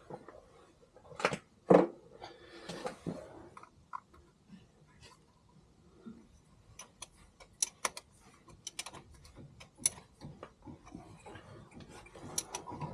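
Hand tools on a car engine: two sharp metal knocks about a second in, then a ratchet spanner clicking in short quick runs as the bolts of a distributor blanking plug are tightened down.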